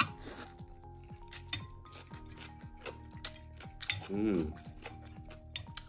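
Eating utensils clicking and clinking against a bowl of noodle soup during a meal, over background music with a deep, sliding bass beat. A short voiced sound about four seconds in is the loudest moment.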